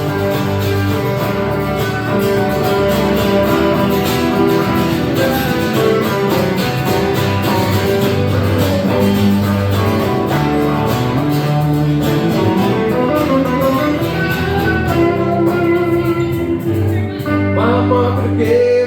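Live country band playing an instrumental break, with guitar carrying the melody over a steady bass.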